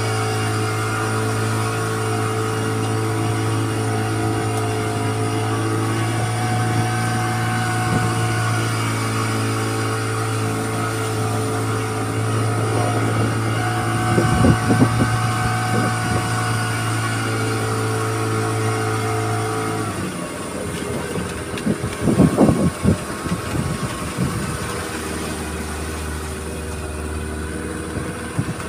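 Small outboard motor on a fishing boat running steadily under way, then throttled back about two-thirds of the way through to a lower, quieter idle. A few knocks and thumps mid-way and after the throttle drops.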